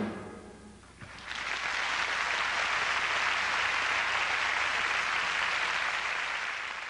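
Theatre audience applauding, starting about a second in after the band's last chord dies away, and tapering off near the end.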